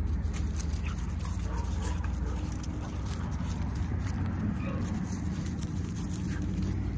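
Two puppies playing and scuffling in dry leaves and grass, with a few faint whimpers, over a steady low rumble.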